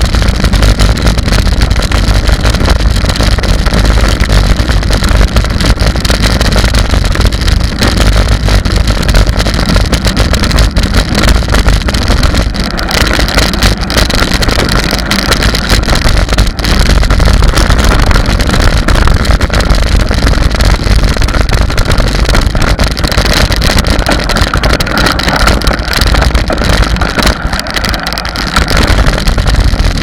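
Wind buffeting the microphone of an action camera on a moving mountain bike: a loud, steady rumble, with the rattle of tyres and bike over a gravel trail, easing briefly near the end.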